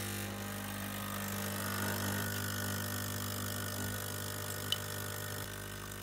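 DeLonghi espresso machine's pump running with a steady buzzing hum as it pushes water through the new machine for a first flush, which she guesses is to clean it. The hum eases slightly near the end.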